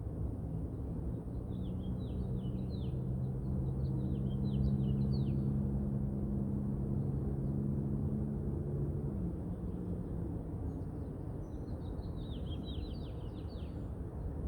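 A songbird singing two phrases of quick, falling chirps, one near the start and one near the end, over a steady low rumble of distant city noise and wind. A low engine hum holds through the first part and fades out about two-thirds of the way through.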